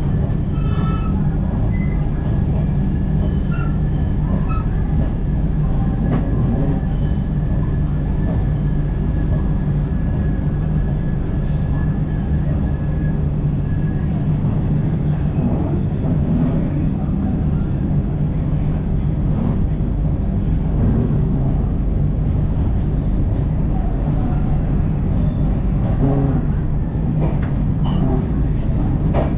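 Tejas Express passenger coach rolling out of a station, heard from aboard: a steady low rumble of the wheels and running gear, with a few faint light clicks.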